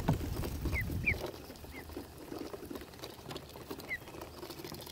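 Ducklings peeping, with about five short, high, falling peeps, over a steady patter of small ticks from bills pecking seed off a wooden dock. A low rumble runs for about the first second, then stops.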